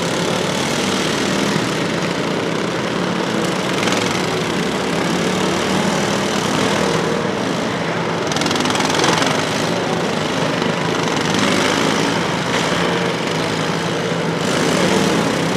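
Several riding lawn mowers' small engines running together in a steady, dense drone, their pitch rising and falling here and there as the mowers drive and push into each other.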